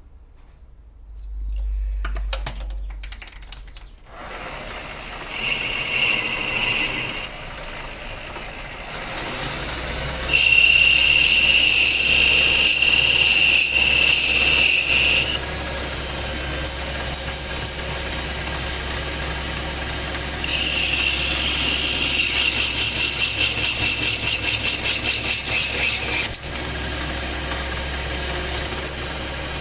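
Power tool motor running steadily, with a high whine that comes and goes in long stretches and a fast pulsing during the last part.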